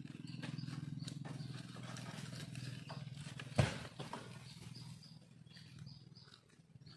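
Oil palm harvesting sickle (egrek) on a long fiber pole grinding and rasping as it is drawn through a frond or bunch stalk high in the palm, with one sharp knock about three and a half seconds in.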